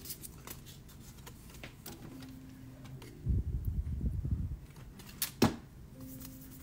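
Hands handling cardstock on a cutting mat with small clicks and rustles. A little over three seconds in, a hot glue gun is picked up and worked for about a second with a cluster of low knocks and rubbing. A single sharp click follows a little after five seconds.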